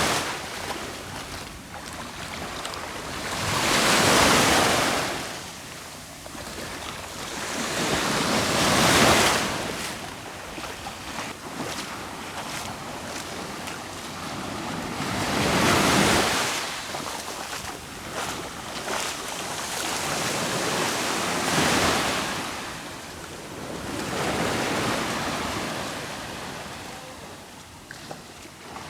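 Black Sea surf: waves breaking on the shore one after another, about every five to six seconds, each swelling up and washing back.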